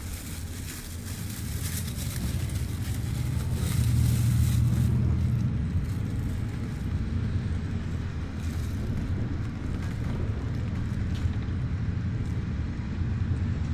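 Bus running, heard from inside during a ride: a steady low engine and road rumble that swells about four seconds in, with a few faint clicks.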